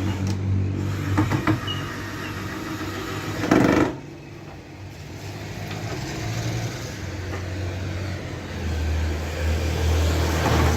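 Large woofer in an amplified speaker box playing deep, steady bass tones loudly, lower and louder from about nine seconds in, with a single thump about three and a half seconds in. The speaker has just been repaired with its cone and dust cap re-glued, and no scraping rattle is heard.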